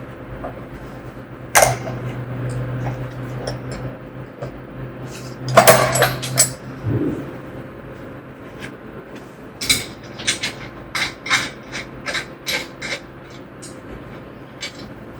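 Scattered metal clanks and clicks as parts of a steel sawmill bed and hand tools are handled during assembly, with a run of quick knocks in the second half. A low steady hum runs underneath and fades out about halfway through.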